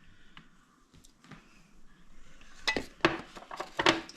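Several sharp knocks and clinks of kitchen dishes and utensils against a mixing bowl, most of them in the second half.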